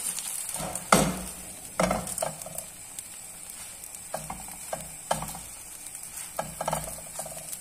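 Vegetable crêpe frying in a non-stick pan with a light sizzle, and a few sharp knocks and scrapes as it is pressed and turned in the pan, the loudest about a second in.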